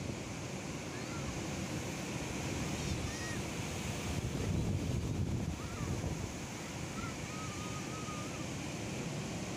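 Ocean surf breaking offshore and washing up the beach in a steady, continuous rush.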